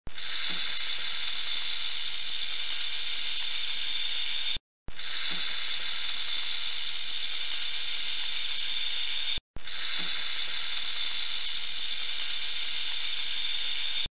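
Rattlesnake shaking its tail rattle: a steady, high, dry buzz in three stretches of about four and a half seconds, each cut off by a brief silence.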